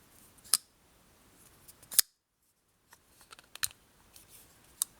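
Sharp metallic clicks of a Petrified Fish PF818 ball-bearing flipper folding knife being handled, its blade snapping open and shut. Two strong snaps, about half a second in and about two seconds in, are followed after a brief dead gap by several lighter clicks.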